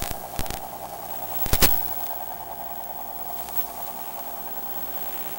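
Interference static from a cheap wireless spy camera's link: a steady hiss with a faint hum, broken by sharp crackling pops, the loudest about one and a half seconds in.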